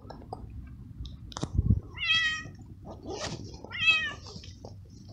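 Young stray cat meowing twice, about two seconds apart, with a low thump just before the first meow.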